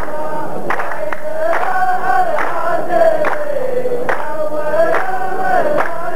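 A line of men chanting a poet's verse in unison, the sung chorus of a qalta poetry duel, with sharp hand claps roughly once a second.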